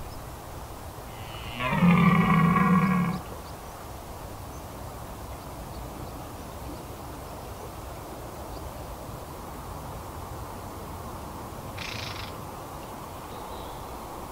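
Red deer stag giving a single rutting roar, about a second and a half long, starting a little after one second in.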